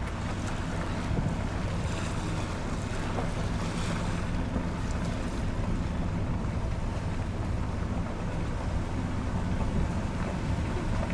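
A steady low motor hum under wind noise, unchanging throughout.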